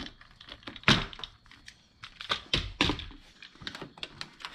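Plastic door sill trim panel being pulled up and handled: a few sharp plastic clicks and knocks from the trim and its clips, the loudest about a second in.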